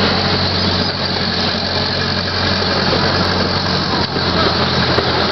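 A miniature zoo train's engine running steadily as the train moves, heard from an open passenger car, with a constant noise of the ride over it.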